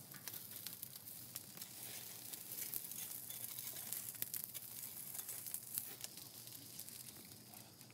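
Burning charcoal crackling with faint scattered ticks and rustles as a metal rake spreads the coals evenly under a tunnel barbecue.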